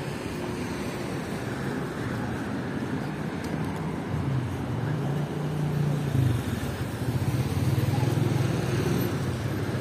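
Street traffic: vehicle engines running steadily, with a low engine hum growing louder in the second half as a vehicle comes close.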